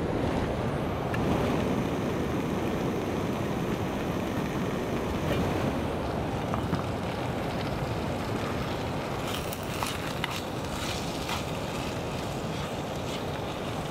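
Metal spoon clinking and scraping against a cooking pot as food is stirred. The light clicks bunch up in the second half, over a steady rushing noise.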